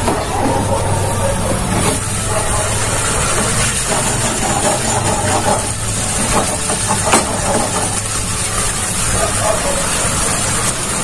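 Chicken curry simmering in a pan on a gas stove while a spatula turns the chicken, over a steady low kitchen hum, with one sharp tap about seven seconds in.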